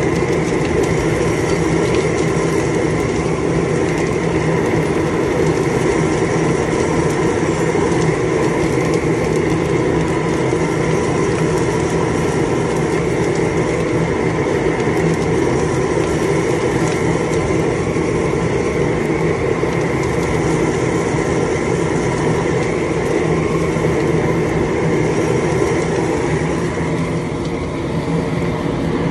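Propane chile roaster running: a loud, steady roar from the burners and the rotating mesh drum tumbling green chiles, easing off a little near the end.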